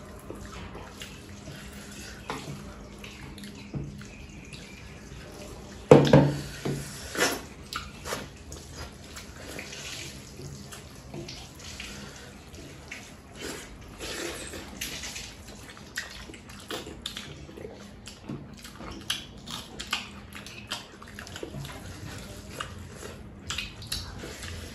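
Wet, squelchy eating sounds of rice being mixed by hand and eaten, with many small scattered clicks and one louder sound about six seconds in.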